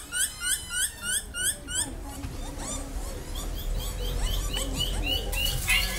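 Bush dogs whining: a rapid series of short, high-pitched calls, about four a second, strong at first and fainter after about two seconds, over a low rumble. The whine is the pack's contact call, used to keep track of each other.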